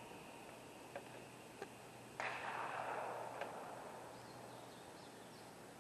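A rifle shot about two seconds in: a sudden crack whose echo rolls away over about a second and a half. Two faint clicks come before it.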